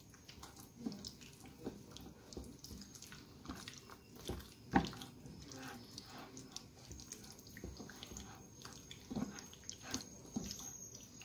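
Hands kneading marinated raw chicken pieces with potato starch and flour in a bowl: faint, irregular wet squishes and sticky clicks, with one sharper click about five seconds in.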